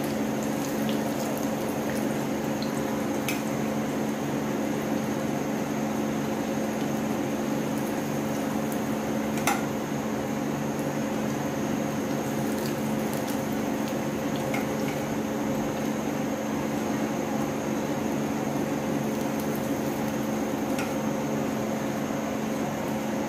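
Hot oil sizzling steadily in a frying pan as shallow-fried chicken cutlets are lifted out, over a steady low hum. A few sharp clicks of metal tongs against the pan, the loudest about ten seconds in.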